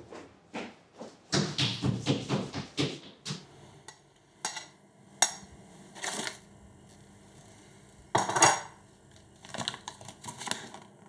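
Dishes and cutlery clattering, a quick run of knocks over the first few seconds. Then come sharp crinkles and rustles of plastic wrapping dropped into a rubbish bin, and of a paper card being handled near the end.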